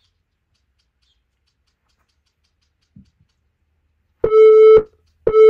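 Interval timer's countdown beeps marking the last seconds of a Tabata work interval: after about four seconds of near silence, two short identical beeps come a second apart.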